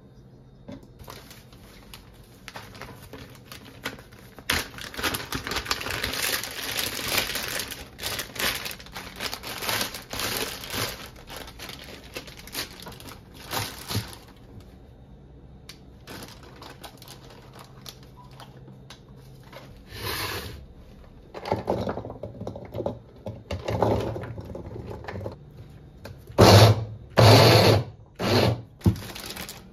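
Knife chopping on a cutting board, a fast run of taps for the first half, then, after a pause, a few shorter, louder bursts of chopping near the end.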